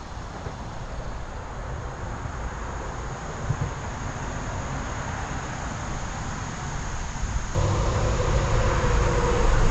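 Outdoor ambience of wind on the microphone with a steady high insect drone. About seven and a half seconds in it switches abruptly to a louder low rumble with a steady droning hum.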